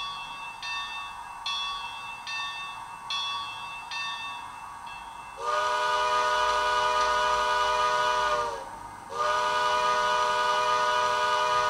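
A Bachmann 2-8-0 model steam locomotive's sound system ringing its locomotive bell steadily, a little over one strike a second. About five seconds in, the bell gives way to two long blasts on a steam whistle that sounds several tones at once.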